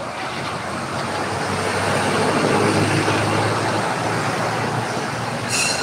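Street traffic of motorbikes and a box truck going by, its engine noise swelling to a peak about two seconds in and then easing off.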